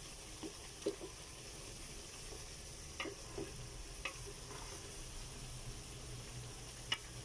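Pork pieces sizzling in oil in an aluminium pot, stirred with a wooden spatula, with a few sharp pops. The pork is frying until it pops and browns.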